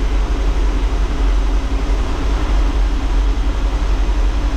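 1984 Chevy motorhome's V8 engine idling steadily, loud and low in the cab with the engine cover off.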